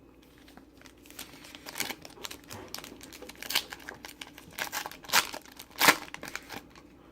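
Trading-card pack wrapper crinkling and tearing as it is ripped open: a run of irregular sharp crackles, the loudest two near the end.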